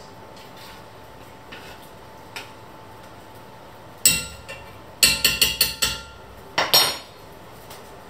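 A metal spoon knocked against the rim of a red enamelled pot, with faint clinks of stirring first. There is one sharp knock about four seconds in, a quick run of about six taps a second later, and a last knock near the end.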